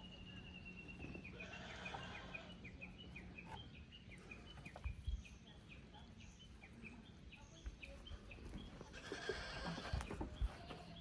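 Goat kids bleating twice, about a second in and again near the end, while a bird calls in a long run of short, quick chirps that stops about three-quarters of the way through.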